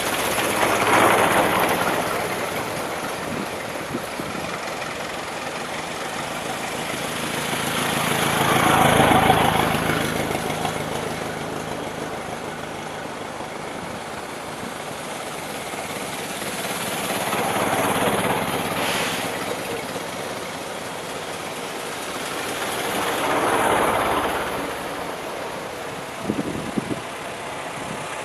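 Vintage cars driving past one after another, each engine swelling and fading away: four pass-bys, the second the loudest. A few short knocks near the end.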